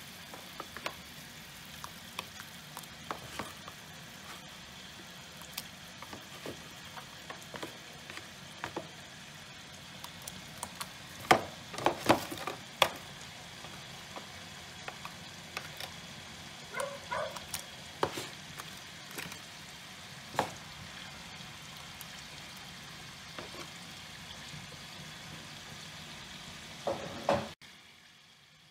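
A pot of chicken soup with chicken liver dumplings boiling: a steady bubbling hiss with many scattered small pops, and a cluster of louder clicks about halfway through. The sound cuts off suddenly near the end.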